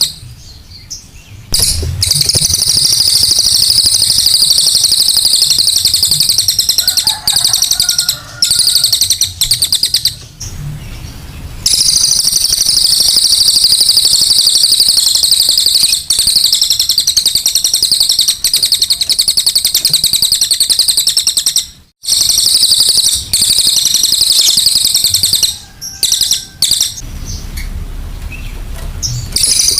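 Cililin songbird singing at full output: a dense, rapid, very high-pitched chattering song delivered in long unbroken runs, with a few short breaks.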